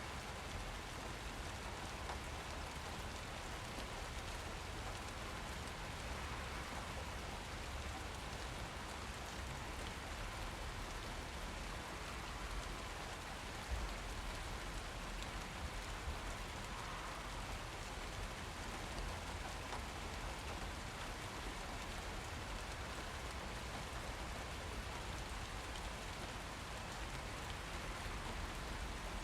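Steady rain falling and pattering on surfaces, an even hiss of drops with no letup, and a single soft low thump about halfway through.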